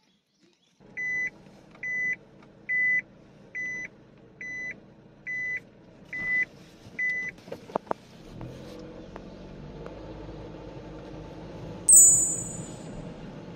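A car's electronic warning beeps, eight evenly spaced high beeps a little under a second apart, over the car's running noise. About eight seconds in the car's low rumble grows heavier, as it pulls away. Near the end a short, sharp, high-pitched sound is the loudest moment.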